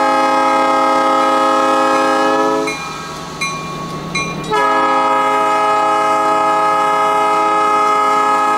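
Air horn of GP7U diesel locomotive 2207 sounding a loud chord in two long blasts: the first breaks off a little under three seconds in, and the second starts about two seconds later and holds. The diesel engine's low running sound comes through in the gap between the blasts.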